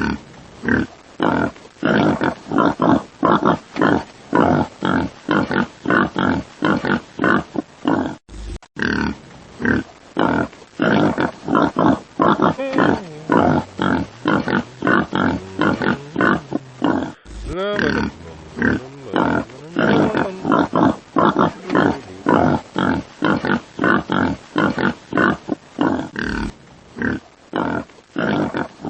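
Pig grunting in quick succession, about two or three short grunts a second, with a brief break roughly every nine seconds.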